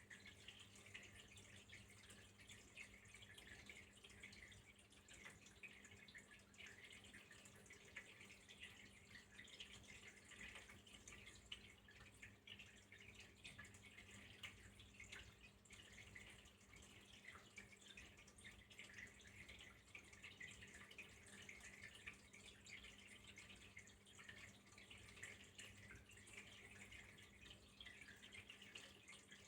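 Faint, steady trickling of flowing water with dense fine drips and splashes. A low steady hum runs underneath.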